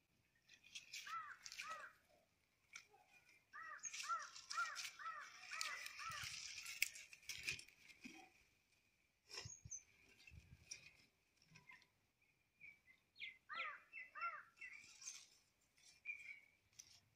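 A crow cawing in short runs: two calls near the start, a quick run of about six in the middle, and a few more near the end. Scattered clicks and rustles of dry sticks being handled come between the calls.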